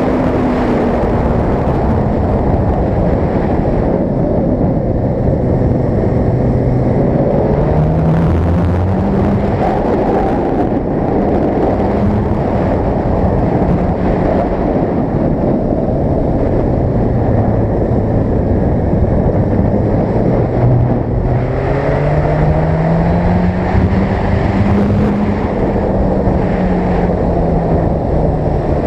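Suzuki GSX-R sport bike's engine running at road speed, its pitch rising and falling several times as the throttle opens and closes through the bends, under a heavy rush of wind noise.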